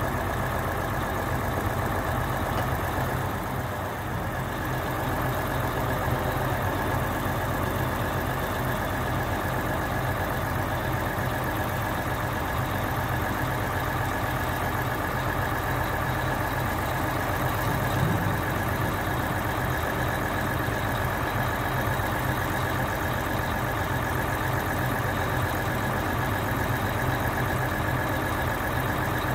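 Mercedes-Benz Actros 4141 truck's diesel engine running steadily at idle, powering the hydraulics of its loader crane while the boom is unfolded.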